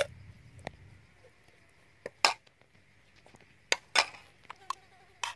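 Metal spoon and snail shells clinking against an aluminium wok and plate as filling is spooned into the shells: a string of separate sharp clinks, the loudest about two and four seconds in.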